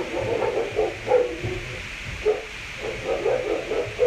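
A dog barking and vocalizing in short bursts, about five in a row, the loudest about a second in.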